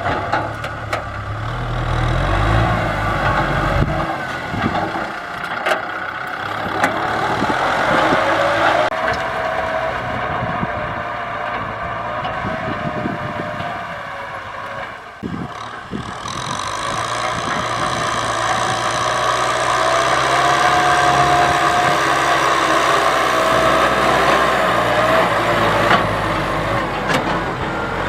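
Kubota M6040SU tractor's diesel engine running steadily under load while ploughing, its pitch wavering up and down. It dips briefly about halfway through, then picks up again.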